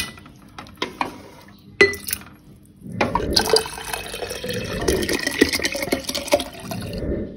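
A couple of light knocks, then from about three seconds in liquid pouring steadily from a pot into a glass jar, filling it.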